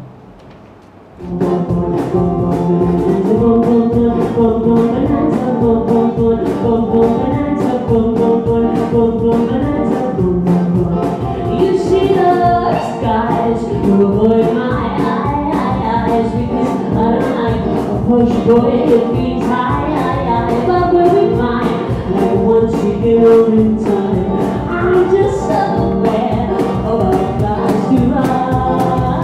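Live band music starting abruptly about a second in: singing over instruments with a steady beat.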